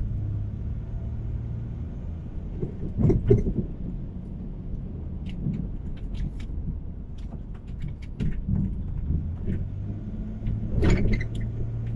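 Car driving, heard from inside the cabin: a steady low engine and road hum, with a few short knocks and thumps.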